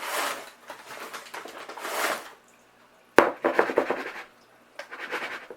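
Flour being scooped and poured with a measuring cup: rustling and scraping swells, and a sharp knock of the cup against the bowl a little past three seconds in, followed by brief clattering.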